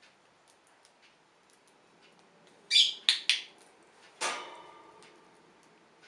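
A short lovebird chirp, then two quick sharp clicks and, about a second later, a louder click that rings briefly, typical of a pet-training clicker. Faint light ticks are scattered in between.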